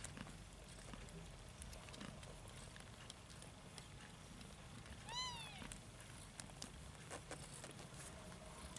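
A young nursing kitten gives one short, high mew about five seconds in, rising then falling in pitch. Faint scattered clicks from the litter jostling at the teats lie under it.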